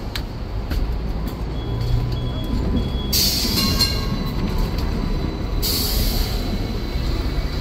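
Hong Kong double-decker electric tram running along its rails, a steady low rumble, with two loud hissing bursts about three and six seconds in as another tram passes alongside.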